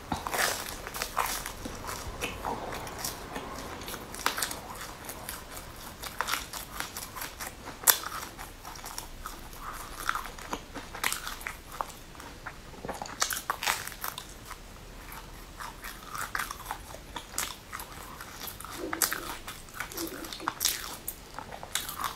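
Close-up biting and chewing of a crisp pan-fried cake, with irregular crunches and crackles of the crust, the sharpest about eight seconds in.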